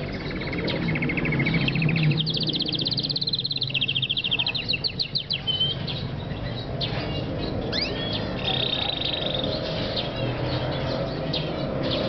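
A white male canary singing. Phrases of fast trills, each a quick run of the same note repeated, alternate with a few sweeping whistled notes and short pauses.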